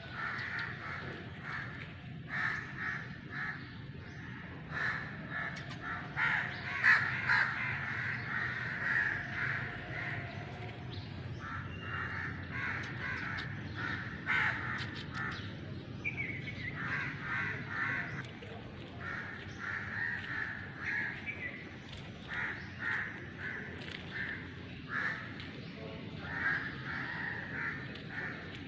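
Birds calling over and over in short, quick runs, with a steady low background rumble underneath.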